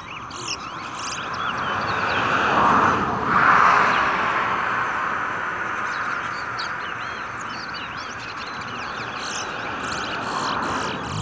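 Caged twa-twa seed finches singing in short rapid chirps and whistles, over a steady rushing noise that swells loudest about three seconds in.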